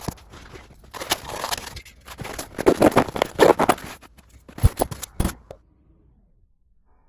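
Packaging rustling and scraping mixed with sharp clicks of plastic and metal parts being handled. It stops abruptly about five seconds in.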